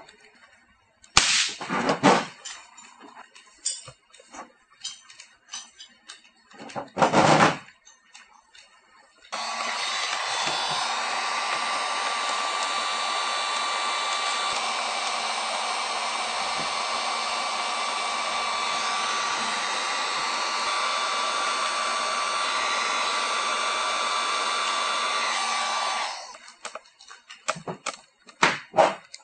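Digital heat gun blowing steadily for about seventeen seconds, heating the aluminum panel around a welded pin before it is pulled. Earlier come two loud bursts about a second long, and light clicks of handling the puller near the end.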